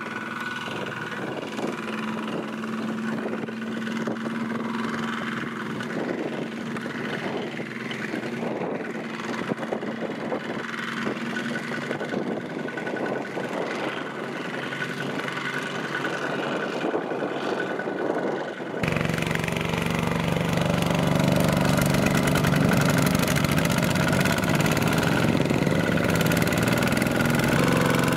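Single-cylinder diesel engine of a two-wheel walking tractor running steadily under load as it pulls a loaded trailer through mud. About two-thirds of the way through, the sound cuts abruptly to a louder, deeper run of the same kind of engine.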